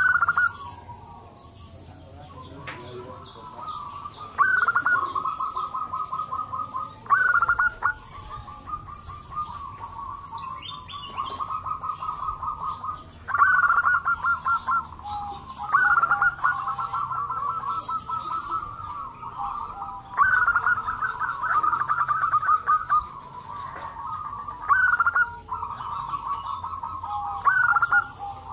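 Several zebra doves (perkutut) cooing in turn and overlapping. Each song opens with a higher note and runs into a quick string of short cooing notes, with a new song starting every few seconds.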